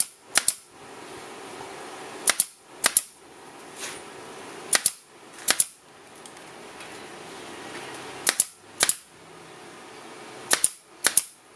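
Pneumatic pin nailer firing small pins through carpet into a hardwood boat-trailer bunk board. About ten sharp shots come at irregular gaps of one to two seconds, and many sound as a quick double snap.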